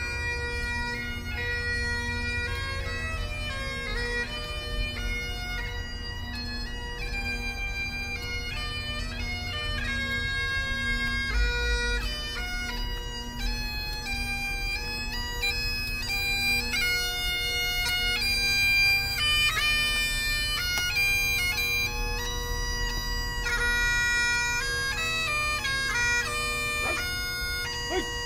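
Bagpipes playing a melody over a steady drone.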